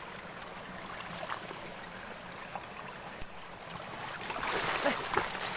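Water sloshing and splashing in shallow water, growing louder about four seconds in.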